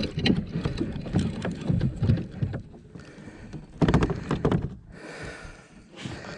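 Irregular low knocks and rustling, louder about four seconds in, as a large catfish is fought on rod and reel.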